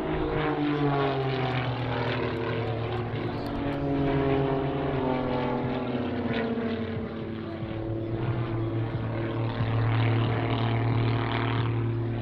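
Propeller aircraft flying a display pass, a steady multi-tone engine and propeller drone. Its pitch slides slowly down over the first half, then holds steady and grows a little louder near the end.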